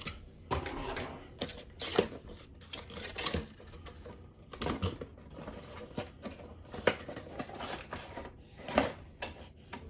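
Cardboard retail box being pried and torn open by hand: irregular rustling and scraping with a few sharp snaps scattered through.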